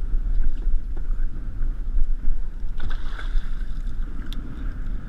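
Steady low rumble and hiss of a small boat on choppy water, with wind on the microphone and a few faint knocks.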